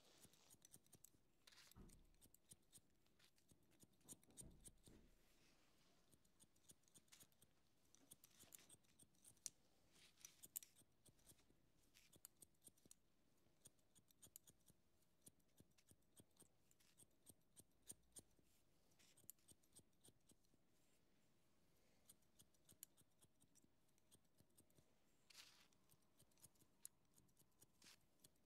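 Hair-cutting scissors snipping through hair, soft and close, in quick irregular runs of many snips with short pauses between them.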